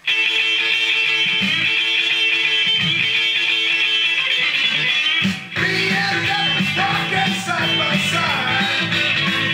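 Rock band music with electric guitar starts abruptly after silence. After a short drop about five and a half seconds in, it carries on fuller, with a heavier low end.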